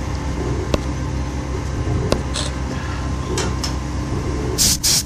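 Gas burner flame running with a steady rumble against an aluminium die, with a few light metallic clicks. Near the end come several short bursts of hissing.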